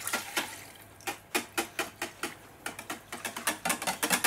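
Small whisk stirring a milky water-and-oil body-spray mix in a plastic tub, clicking and tapping against the tub's sides about four times a second after a brief lull near the start, quickening toward the end.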